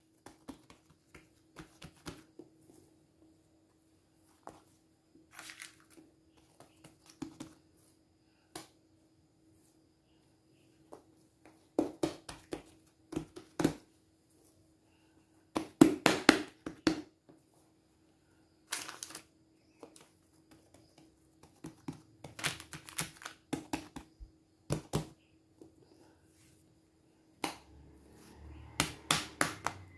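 Hands patting, pressing and stretching soft ensaimada dough strips on a work surface: scattered soft taps, pats and rustles in irregular clusters, over a faint steady hum.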